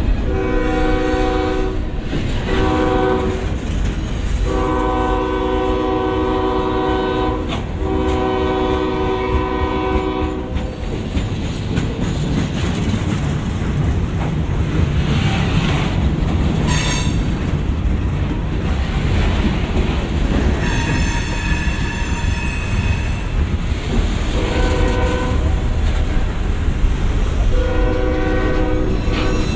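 Norfolk Southern GE ES40DC diesel locomotive's air horn sounding a series of long and short blasts over the heavy, steady rumble of its engine. About five blasts come in the first ten seconds, another about twenty seconds in, and two short ones near the end.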